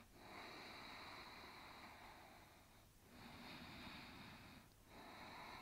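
Faint, slow breathing in and out through the throat, in the ujjayi style of Ashtanga practice. Each breath is a long, even hiss, with brief pauses about three seconds in and again near the end.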